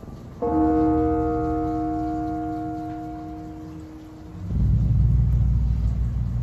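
A deep bell- or gong-like tone, several pitches together, starts sharply about half a second in and rings on, slowly fading over about three seconds. It is followed by a loud low rumble from about four and a half seconds in.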